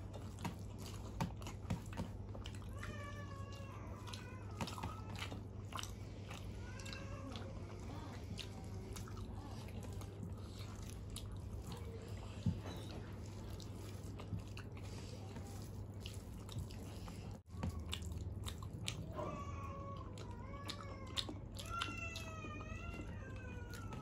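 Eating by hand from steel plates: fingers mixing rice and curry with sharp clicks against the metal, and chewing. A high, wavering call sounds a few times, about three seconds in and again from about nineteen seconds to the end.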